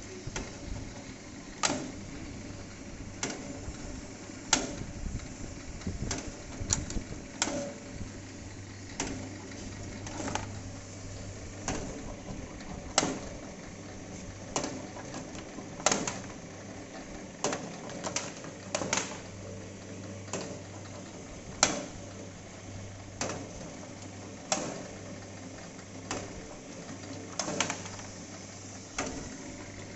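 Betel-nut (supari) splitting machine running on its 0.5 HP electric motor with a steady low hum, and sharp clicks about every one to two seconds as areca nuts are cut in half and the halves drop out.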